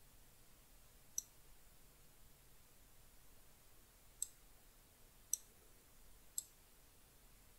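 Four faint, sharp computer mouse clicks over near-silent room tone: one about a second in, then three more about a second apart later on.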